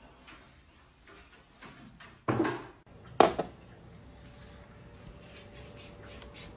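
A brief scraping noise about two seconds in, then a single sharp knock with a short ring. A faint steady hum follows.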